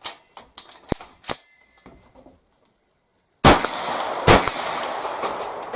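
AR-15 rifle firing two shots less than a second apart, about three and a half seconds in, each followed by a long fading echo. A few light clicks come before the shots.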